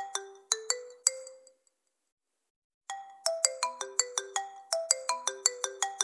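Incoming-call ringtone of a ZTE Android 11 phone. A quick melody of short, chiming notes ends about a second and a half in. After about a second of silence the same phrase starts again.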